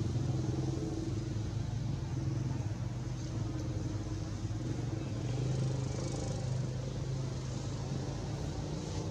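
A motor vehicle engine running with a steady low rumble.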